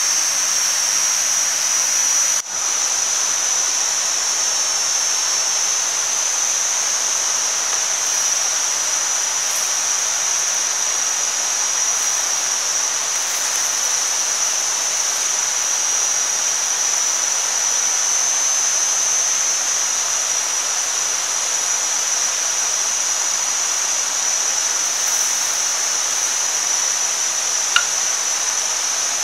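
Meat sizzling on a stone heated over an open wood fire: a steady hiss with a steady high-pitched whine over it, briefly broken about two and a half seconds in, and a single small pop near the end.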